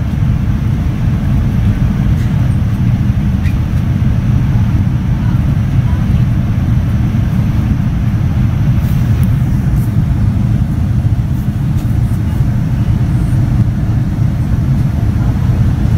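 Steady, deep cabin roar of a Boeing 787-9 airliner in descent, heard from a window seat beside its GE GEnx-1B engine: engine and airflow noise, even in level.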